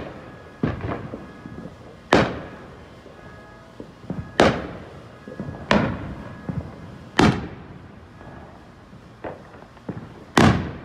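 Aerial fireworks shells bursting overhead: about six loud bangs, a second or two apart, each trailing off in a rolling echo, with smaller pops and crackles in between.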